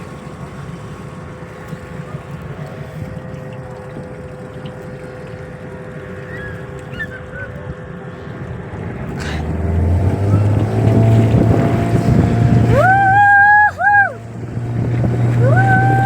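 Motorboat's outboard engine running at a low hum, then opening up and getting much louder about two-thirds of the way through, with wind and water noise. Near the end, two long, steady, high-pitched tones sound, each lasting over a second.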